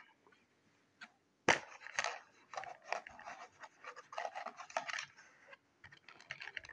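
A hand rummaging in a moulded plastic headphone box tray: a sharp knock about a second and a half in, then irregular scraping and clicking of plastic.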